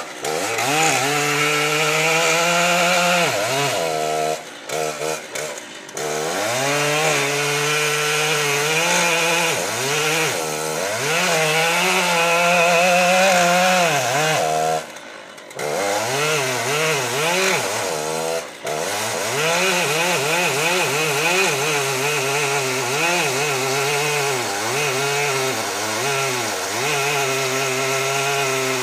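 Stihl 088, a large two-stroke chainsaw, cutting into a thick oak trunk, revving up and down as it bites. It briefly drops off about four to six seconds in, again near fifteen seconds, and once more a few seconds later.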